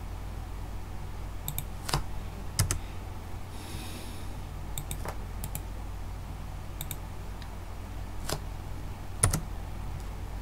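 Computer mouse and keyboard clicking while code is copied and pasted: about a dozen separate clicks at irregular intervals, some in quick pairs, over a steady low hum.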